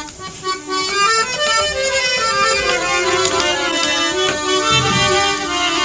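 Instrumental interlude of traditional Pakistani saang folk music: a melody of held, stepping notes with light drum strokes.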